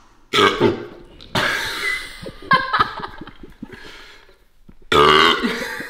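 A person burping several times, brought on by gulping down a bottle of Sprite; the last burp, near the end, is the longest and loudest.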